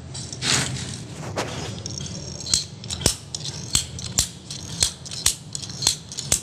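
Ratcheting scissor-type PPR pipe cutter being squeezed on a plastic water pipe: a series of sharp ratchet clicks, about two a second in the second half.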